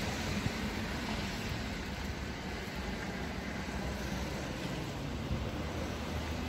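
Steady city street ambience: an even hum of road traffic, with no single sound standing out.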